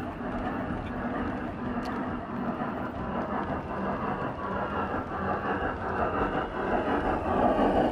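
7mm-scale (O gauge) model freight train's wagons rolling past on the track, a steady rumbling running noise that grows louder near the end.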